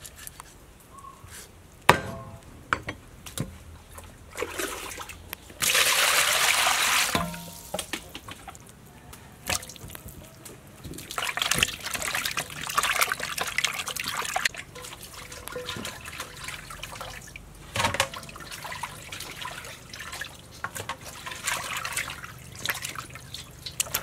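Raw chicken pieces being washed by hand in water in a metal bowl: splashing and sloshing in irregular spells, with a brief burst of running water about six seconds in and a sharp knock about two seconds in.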